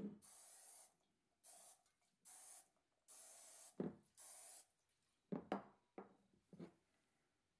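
Aerosol can of no-stick cooking spray hissing in five short bursts as it coats a loaf pan, followed by a few light knocks.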